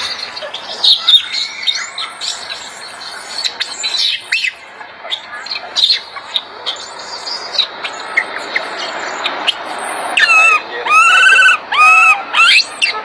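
Infant rhesus macaque crying while its mother grooms it: short high chirps and squeaks, then, near the end, a run of four or five loud arched cries that rise and fall in pitch.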